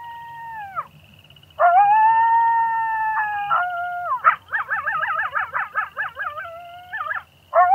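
Coyotes howling and yipping. Long overlapping howls rise, hold and fall away, with a warbling run of quick yips in the middle and short pauses between calls.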